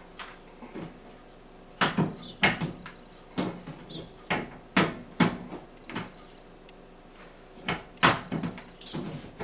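Irregular hard clacks and knocks, about a dozen, of parts being handled and set down while a kitchen ventilation fan is taken apart for cleaning.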